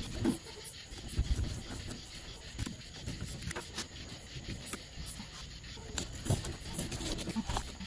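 Fillet knife cutting along a redfish on a cutting board: scraping and rubbing of the blade and hands on the skin and scales, with scattered small clicks and light knocks on the board.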